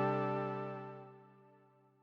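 A GForce Prophet-5 plug-in FM patch ('Arrival at Village'), Oscillator 2 modulating at audio rate through the Poly-Mod section, releasing a held note rich in overtones. The bright upper overtones fade first and the note dies away to nothing about a second and a half in.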